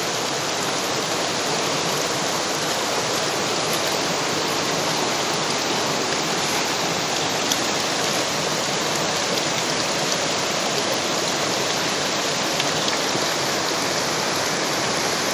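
Steady rushing of a fast-flowing river running over a rocky bed.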